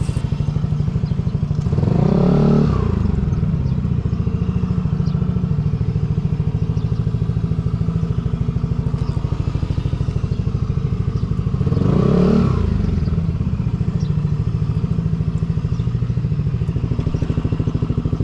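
Motorcycle engine idling steadily, revved briefly twice, about ten seconds apart, each rev rising and falling back to idle.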